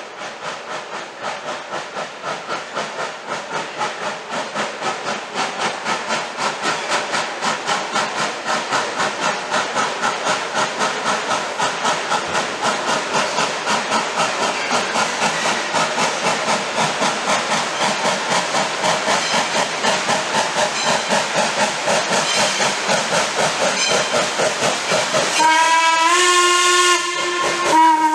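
1907 Baldwin 0-6-0 steam locomotive working toward the listener, its exhaust chuffing in an even beat of about two to three a second and growing louder as it comes. Near the end its steam whistle blows a long blast, then starts a second one after a short break.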